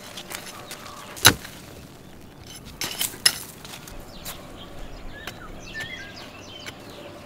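A hand hoe striking into dry soil while weeding: one sharp chop about a second in and two or three more close together around three seconds in. Small birds chirp faintly in the background.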